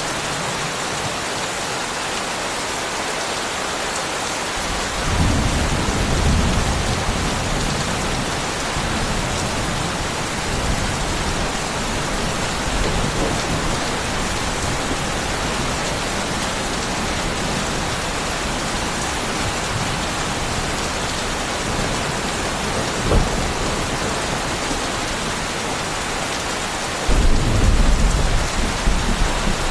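Steady rain falling, with low rumbles of thunder rising about five seconds in, briefly later on, and again more strongly near the end.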